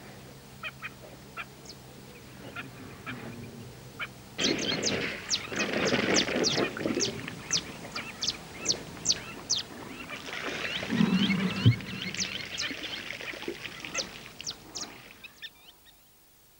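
A flock of birds calling at a waterhole: a few scattered calls at first, then from about four seconds in a dense chorus of many short, sharp calls. The chorus fades away near the end.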